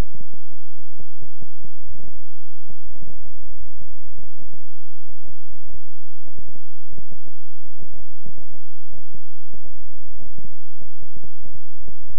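Synthesized 'healing frequency' track: a loud, low drone of several steady tones held together, broken by irregular soft thumping pulses, several a second.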